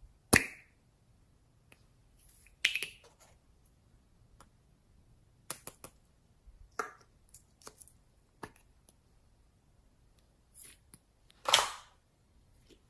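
Slime being pressed and worked by hand, giving scattered sharp pops and crackles as air pockets burst. The loudest pops come just after the start, about three seconds in and near the end, with fainter crackles between.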